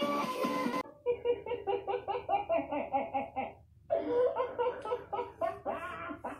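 Music cuts off abruptly just under a second in, then a person laughs in quick repeated bursts, with a short pause before a second bout of laughter at about four seconds in.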